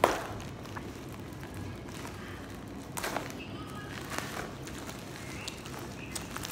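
Plastic courier packaging crinkling and crackling as fingers pick at its wrapping, with a sharp click at the very start and a few louder crackles about three and four seconds in and again near the end, over a steady room hum.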